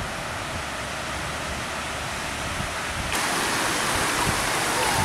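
Steady rush of river water pouring over a barrage weir. About three seconds in it turns abruptly louder and brighter, as close, shallow water spilling over the sloping weir face.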